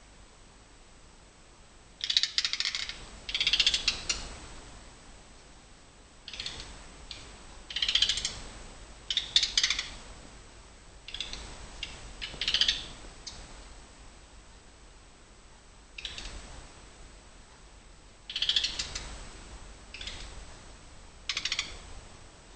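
An unidentified creature's rasping, ratchet-like calls: about a dozen short, scratchy bursts at irregular intervals, each lasting up to about a second.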